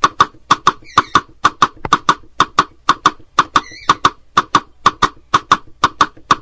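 Horse hooves clip-clopping, a steady walking rhythm of sharp paired hoof strikes, about two pairs a second.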